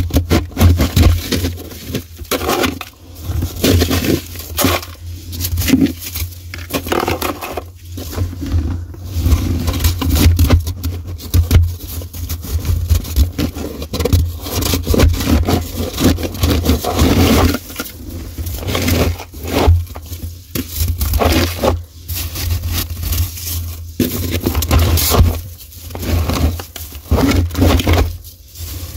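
Gloved hand digging into and scraping thick powdery frost in a deep freezer, crunching and rustling in irregular strokes with brief pauses.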